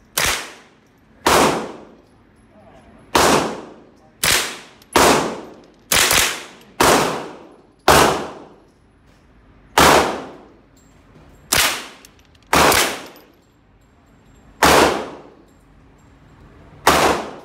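AR-15-style semi-automatic rifle firing single shots, about thirteen in all at an uneven pace, sometimes two close together and sometimes a couple of seconds apart. Each shot is sharp and leaves a short echoing tail in the indoor range.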